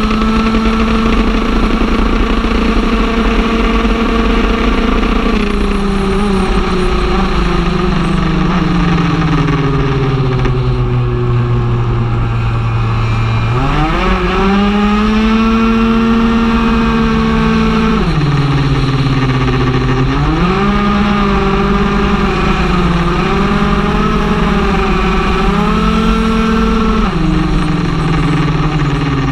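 Stage6 R/T big-bore two-stroke racing scooter engine heard onboard at high revs. The engine note holds for the first few seconds, sinks slowly as it comes off the throttle, then climbs sharply about halfway in as it accelerates hard, with another dip and climb and some wavering before the revs drop near the end.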